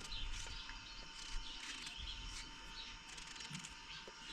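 Small birds chirping: many short, quick chirps throughout, over a faint steady hum.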